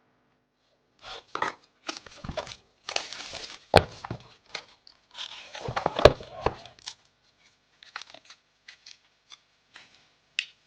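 Packaging being opened by hand: rustling and tearing with two sharp clicks, then a few light taps and ticks as the handling eases off.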